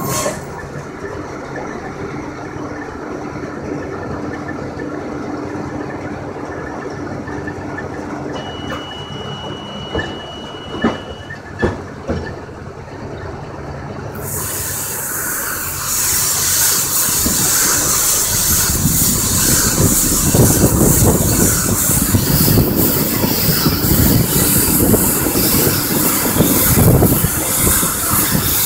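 John Deere 6830 tractor's six-cylinder engine and a McHale Fusion 3 baler-wrapper running steadily. A steady beep sounds for about three seconds, and a few sharp knocks follow as the finished bale is ejected from the chamber onto the wrapping table. About halfway through a loud hiss starts and keeps on as the wrapper spins plastic film around the bale.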